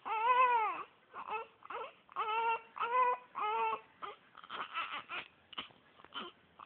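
Infant winding up into crying: one long wailing cry that rises and falls, then three shorter cries in quick succession about two seconds in, trailing off into brief fussing whimpers.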